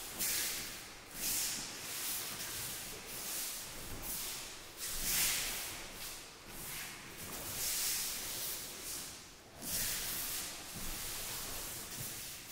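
Repeated short swishes and rustles, roughly one every second, of cotton aikido uniforms and bare feet moving on the mats as students practise.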